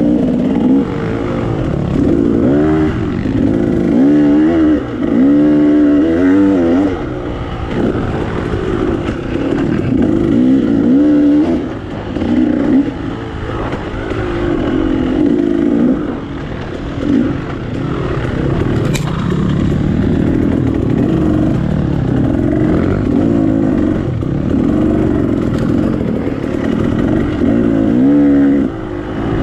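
KTM 300 XC two-stroke dirt bike engine being ridden off-road, its pitch rising and falling over and over with the throttle.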